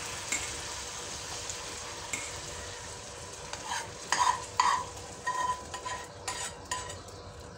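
Spoon scraping fried onions and hot melted yellow butter out of a frying pan into a pot of soup, over a steady soft sizzle as the hot butter meets the soup. A few louder scrapes and taps come about four to five seconds in as the pan is emptied.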